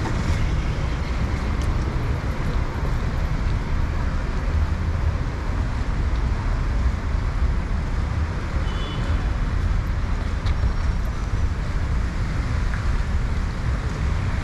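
Steady street traffic noise: a constant low rumble of vehicles with an even hiss over it.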